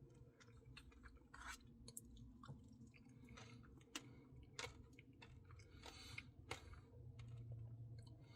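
Faint close-up chewing of soft ice cream, with scattered small wet clicks and smacks of the mouth.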